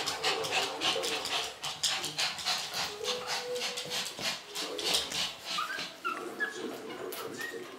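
Four-and-a-half-week-old Shih Tzu puppies whimpering, with short high squeaks and yips now and then, over a steady patter of clicks and rustles.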